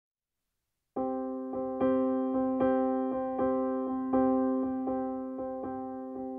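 Background piano music that starts about a second in: notes struck about twice a second, each ringing out and fading before the next.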